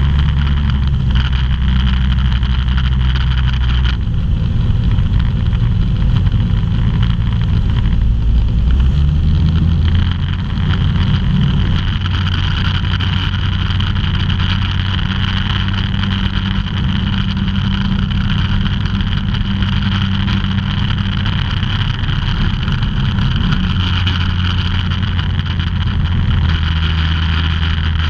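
Ultralight aircraft's engine and propeller running steadily in flight, heard inside the cockpit with rushing airflow. The engine note shifts about four seconds in and again about ten seconds in, with small throttle changes.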